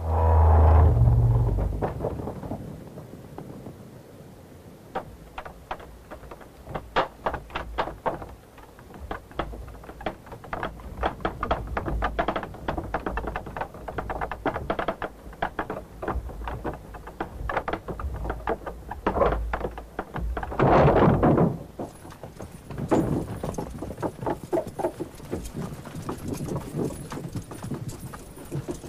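Horses' hooves clopping in a dense, continuous run of hoofbeats. It opens with a heavy low thud and rumble, and there is a brief loud noisy swell about two-thirds of the way through.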